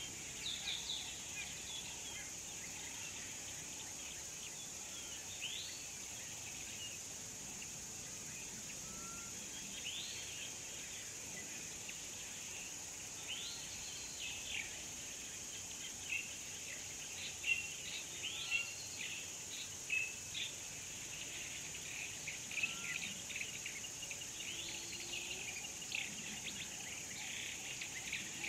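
A steady high drone of insects under birds chirping and calling, the calls growing busier in the second half. A soft, short rising whistle repeats every couple of seconds.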